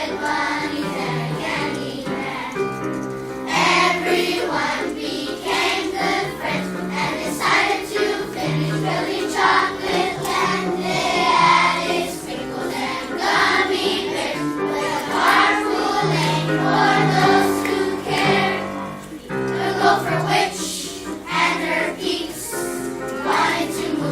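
A third-grade children's choir singing together, with the song running on without a break.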